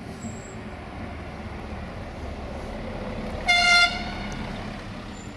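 Neoplan coach driving past, its engine and road noise growing louder and then fading, with one short horn toot about three and a half seconds in.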